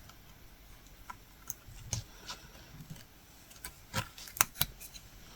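Latch hook tool clicking as it works yarn into the canvas: a handful of light, irregular clicks and small knocks, the loudest around four seconds in.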